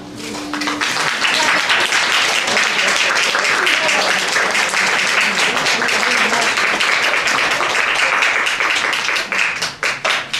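Audience applauding, with the last acoustic guitar chord fading out in the first second; the clapping swells quickly, holds steady, then thins to a few scattered claps near the end.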